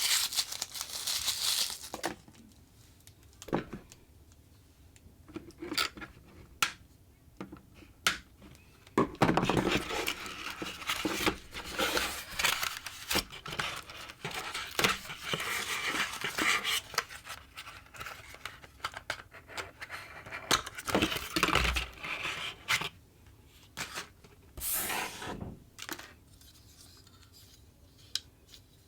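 Action-figure packaging being opened by hand: irregular spells of tearing and crinkling with scattered sharp clicks and taps, separated by quieter pauses.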